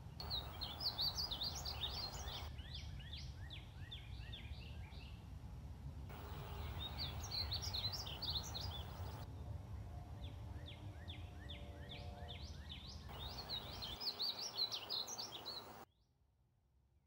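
Male painted bunting singing: repeated phrases of fast, high warbling notes over a low steady background rumble. The sound cuts off abruptly near the end.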